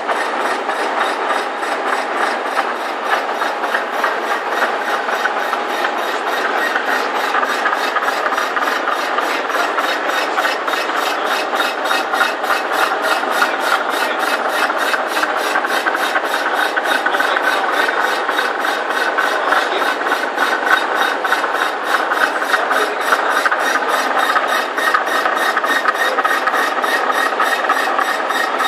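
Large CWB milling machine cutting a Caterpillar V8 engine block: a steady grating cut with a regular pulse about three times a second and high ringing tones from the cutter on the metal.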